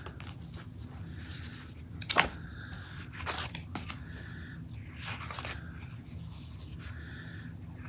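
Quiet handling sounds of paper and craft supplies: light rustles and scattered ticks, with one sharp click about two seconds in.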